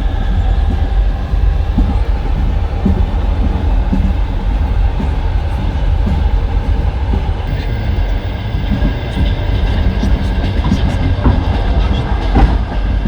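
Passenger train running on the rails: a steady heavy rumble from the wheels with scattered clicks. A steady high whine joins about halfway through.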